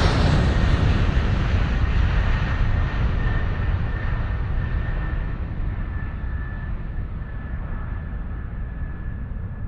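Jet aircraft passing and fading away: a steady roaring rush that slowly grows quieter and duller, with a faint thin whine held above it.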